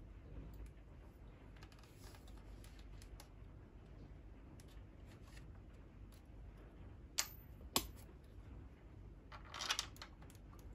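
Small clicks and taps from handling the parts of a spring airsoft M4 rifle, with two sharp clicks about seven seconds in and a short clatter near the end.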